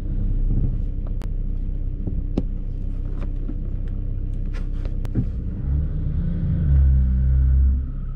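Car engine running, heard from inside the cabin, with a few sharp clicks in the first half. About six seconds in the engine note rises and grows louder as the car pulls away, loudest near the end.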